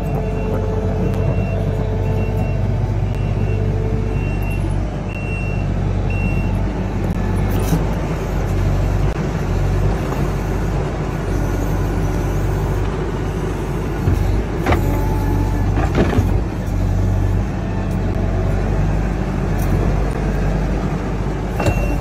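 Kubota compact track loader's diesel engine running steadily while it pushes dirt with its bucket. A reversing alarm beeps at an even pace for about the first six seconds, and a few sharp knocks come about two-thirds of the way through.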